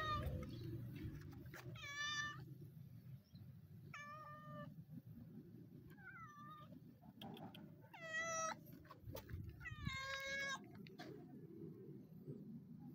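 Tabby cat meowing repeatedly: six short meows, each about half a second long and roughly two seconds apart.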